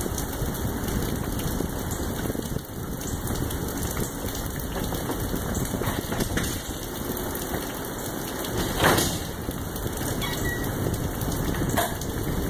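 Steady rain falling, an even hiss, with one brief louder noise about nine seconds in.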